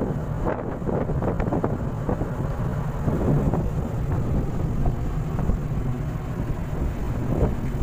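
Wind buffeting the microphone over the rush of the sea and a ship's wake as the ship moves through the water: a steady low rumble with irregular brief surges.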